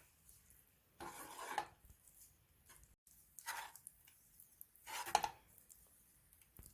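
A utensil scrapes three times through the thick, fully cooked milagu kali paste against the cooking vessel. Each scrape lasts about half a second, and they come about two seconds apart.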